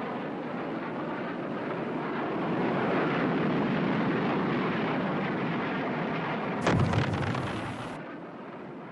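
Jet aircraft roar, a dense rushing noise that swells and then fades away, with one sudden blast about seven seconds in.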